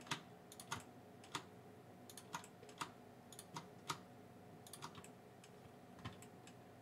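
Faint computer mouse clicks, about a dozen at an uneven pace of roughly one or two a second, made while shift-clicking to select vertices one by one.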